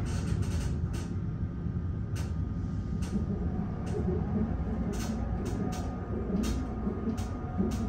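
Mongrain hydraulic elevator cab travelling upward: a steady low rumble and hum of the running lift, with scattered light ticks.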